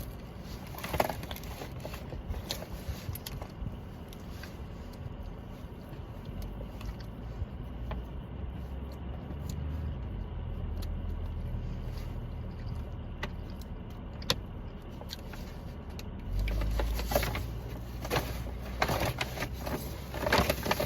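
Someone eating salted soft pretzel sticks: scattered chewing, crunching and handling clicks over a steady low rumble that swells twice.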